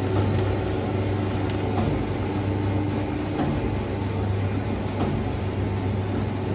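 Ramon meat mixer grinder running steadily with a low, even hum while it minces meat, the mince dropping out of the grinder head into a steel tray.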